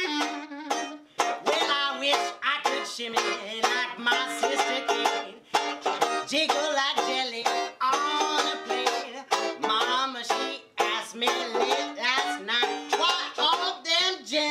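Banjo strummed and picked in a lively New Orleans jazz tune.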